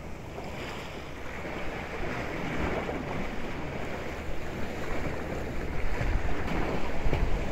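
Wind buffeting the microphone outdoors, a steady rushing noise with low rumbling gusts that grows a little louder over the seconds.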